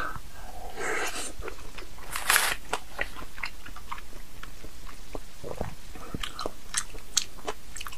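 Close-miked chewing of a mouthful of raw salmon sashimi: soft wet mouth smacks and many small clicks, with one brief louder noisy burst about two seconds in.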